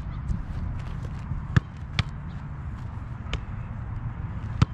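A football being struck and caught in a goalkeeper drill: several sharp thuds of boot and gloves on the ball, spaced irregularly, the loudest near the end, over a steady low rumble.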